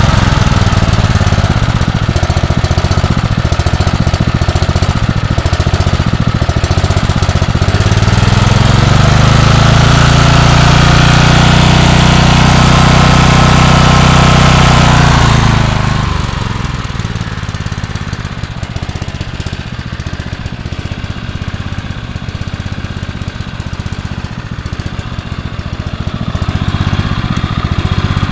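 Generac 4000 W portable generator's single-cylinder engine running steadily after a cold start. About a third of the way in its speed rises and holds. About halfway through the sound drops off and becomes quieter and rougher, then swells again near the end.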